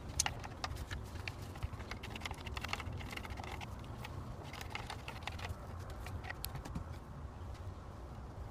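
Wooden craft stick stirring liquid casting resin in a clear plastic cup, scraping and tapping against the cup's sides in a quick run of small clicks that thins out after about six seconds, over a steady low hum.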